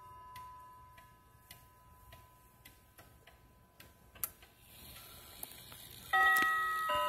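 Hamilton Headmaster wall clock ticking steadily while the faint notes of a chime die away; about six seconds in, with its minute hand turned to the quarter hour, the clock's quarter-hour chime starts, ringing bell-like notes that are the loudest sound.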